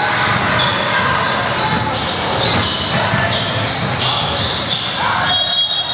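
Basketball game in a gym: a basketball bouncing on the hardwood court, with short high squeaks and players' voices in the echoing hall.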